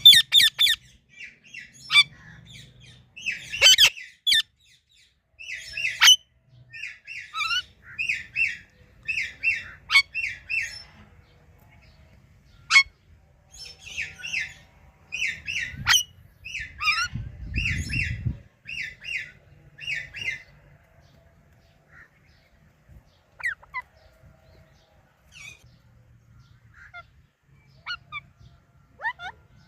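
Ringneck parrot chirping: short, sharp calls repeated in quick runs of several notes, growing sparse after about twenty seconds. A brief low rumble sounds about two-thirds of the way through.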